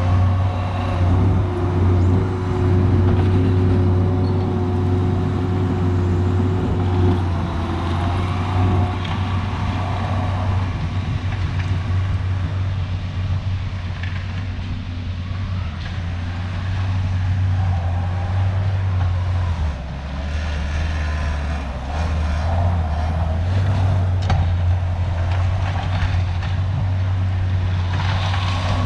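Diesel engine of a tracked earthmoving machine running steadily under load while grading gravel, with a steady whine and some clatter over the engine drone. About two thirds of the way through, the engine note drops for a couple of seconds and then picks back up.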